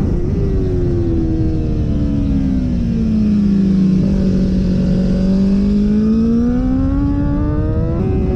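Honda CBR1000RR-R race bike's inline-four engine under way with wind rush: the engine note falls over about three seconds as the bike slows for a corner, holds low, then climbs steadily as it drives out, with a quick gearshift step near the end.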